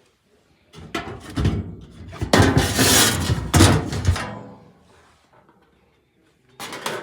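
A run of loud knocks, rattles and scraping from something being handled, lasting about four seconds, with a shorter burst of the same near the end.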